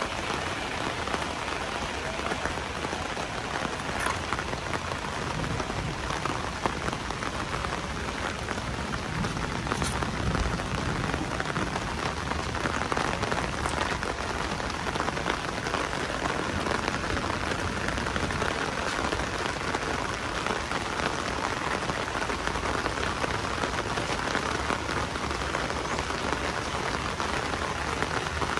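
Heavy rain falling steadily, an even, unbroken hiss with no let-up.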